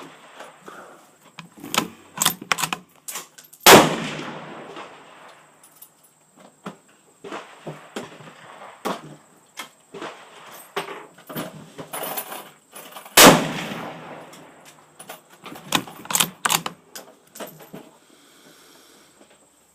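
Gunshots from a Savage firearm: two loud shots about nine and a half seconds apart, each followed by a long echoing tail, with many smaller sharp cracks and clicks in between.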